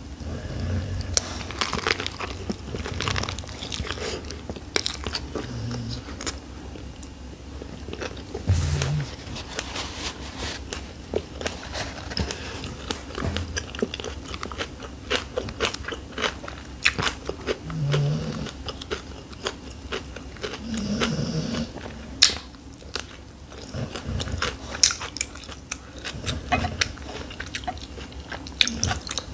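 Eating shrimp summer rolls: the soft rice paper roll is bitten, the lettuce and vegetables inside crunch, and wet chewing clicks and smacks follow.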